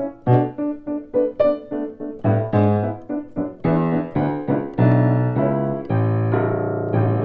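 A 1974 Bechstein Model L grand piano, newly restored with new hammers, played: a run of separate notes and chords, then fuller held chords from about halfway, ending on a long sustained chord.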